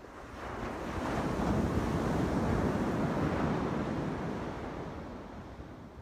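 A single ocean wave breaking and washing up a sandy beach: the surf swells from about half a second in, is loudest midway, then fades as the water draws back.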